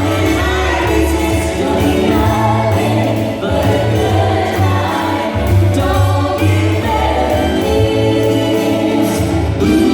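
Music with group singing over a strong, continuous bass.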